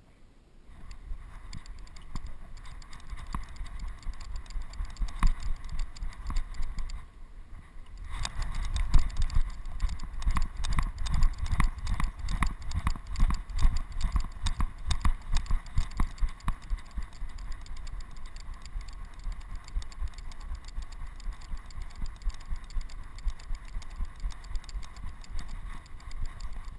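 Dog's running footfalls jolting a harness-mounted camera in a steady rhythm of thuds and rattles, with a rumble of wind and movement that grows louder about eight seconds in.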